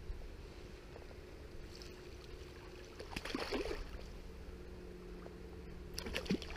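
Steady low rush of flowing river water, with a brief louder noise about three seconds in and again near the end.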